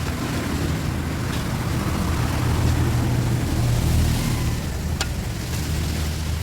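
An engine running steadily with a low hum, with one sharp click about five seconds in.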